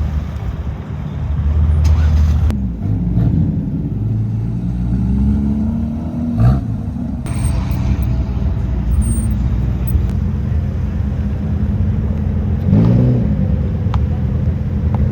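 Performance car engines running as cars roll past, with several short revs that rise and fall in pitch over a steady low exhaust rumble.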